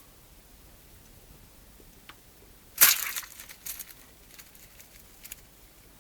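Foley effect made by crushing wet leaves with water. A sudden loud, crunchy burst about three seconds in is followed by scattered crackles for a couple of seconds.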